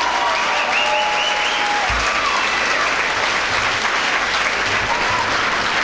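Audience applauding steadily, with a few voices calling out over the clapping in the first two seconds.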